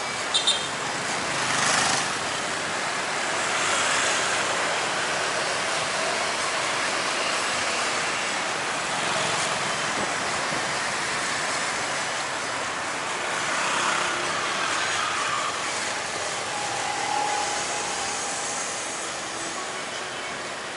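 Street traffic with motorbikes and cars passing: a steady noise that swells each time a vehicle goes by. Two short high beeps sound about half a second in.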